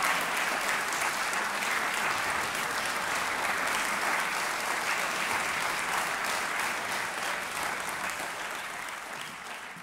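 Audience applauding with steady, dense clapping that fades out near the end.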